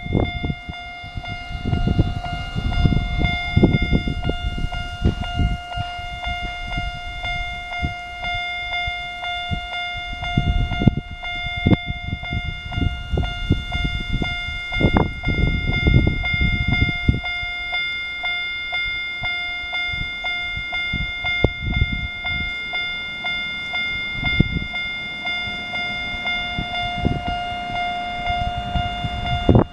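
Japanese railway level-crossing alarm sounding its single-tone electronic ding over and over at a steady pace, warning of an approaching train. Wind buffets the microphone with irregular low rumbles.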